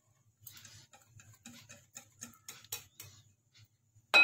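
Wire whisk beating a thick batter in a glass bowl: soft ticks of the whisk against the bowl, about three or four a second, then near the end a sharp, ringing clink of the whisk striking the glass.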